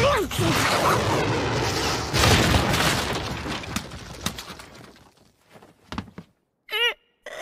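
Cartoon punch impact followed by a long clattering crash as a boy is knocked into a rubbish bin, with a second surge about two seconds in. The crash fades into a few separate clicks of falling pieces, then short whimpers from the boy near the end.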